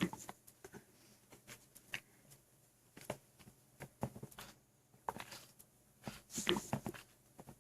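Stomach and gut sounds picked up by a phone lying on the belly of a man stuffed with food and liquid: short, irregular gurgles and pops, with a sudden thump at the very start and a denser run of gurgling about six to seven seconds in.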